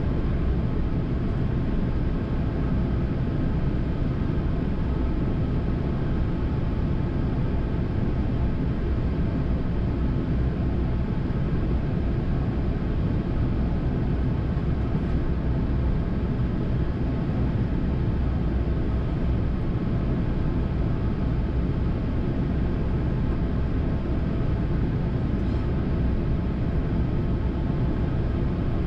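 Steady flight-deck noise of a Boeing 787-9 in flight on approach: an even rush of airflow with a low rumble and faint steady tones underneath.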